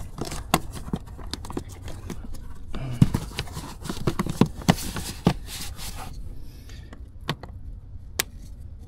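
Hard plastic under-hood trim cover being pressed and knocked into place by hand: irregular plastic clicks, knocks and rubbing, busiest for the first six seconds, then only a few separate clicks.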